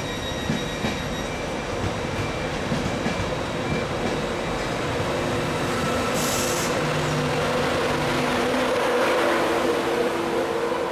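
Passenger train running past along the platform: a continuous rumble of wheels on rails with a steady hum beneath it, and a short hiss about six seconds in. It grows slightly louder towards the end as the rear vehicles pass.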